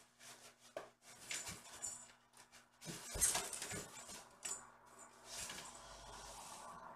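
Kitten playing with a ball and a play tunnel: irregular rustling, clattering and small knocks, busiest about three seconds in, over a steady low electrical hum.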